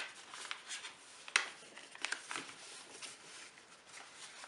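A sheet of paper being folded back and forth into a fan-fold, creased and pressed flat by hand: a series of short crisp rustles and crackles, the sharpest about a second and a half in.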